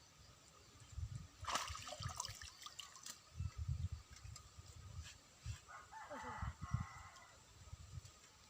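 A rooster crowing, once about one and a half seconds in and again around six seconds in, with a falling tail on the second call, over faint low rumbling thumps.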